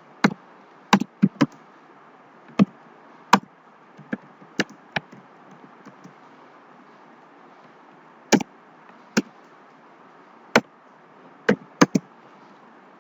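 Computer keyboard keystrokes typed slowly and irregularly, each a sharp clack, sometimes two or three in quick succession and sometimes a second or more apart, over a faint steady hiss.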